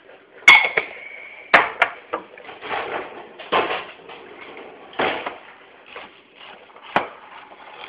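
Tableware clattering on a kitchen counter: a sharp clink about half a second in that rings briefly, then several knocks and scrapes as dishes are set down and a spoon stirs cereal in a bowl.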